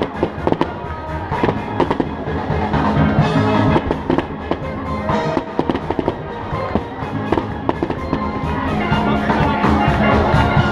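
Fireworks display going off, with repeated sharp bangs and crackling bursts over music with a beat.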